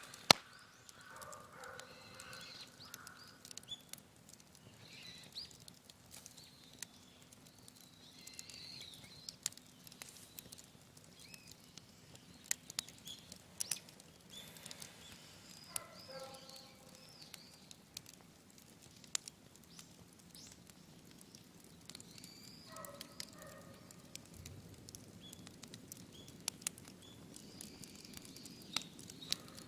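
Wood fire crackling, with scattered sharp pops. Short bird calls come in a few times, near the start, about halfway through and again later.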